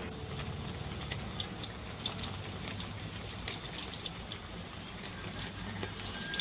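Wood fire crackling in a stone hearth: split firewood burning, with sharp pops scattered irregularly over a steady low hiss.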